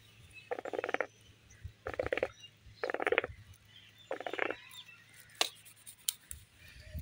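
Water in a village hookah (huqqa) gurgling as smoke is drawn through it, in four pulls about a second apart, followed by a single sharp click.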